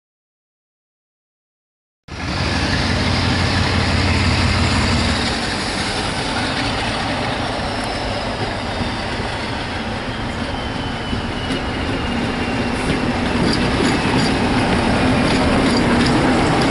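Silence for about two seconds, then a diesel locomotive working hard as it approaches and passes close with a train, its engine running loud and steady with a thin whine that slowly falls in pitch, and clicks from the wheels on the rails near the end.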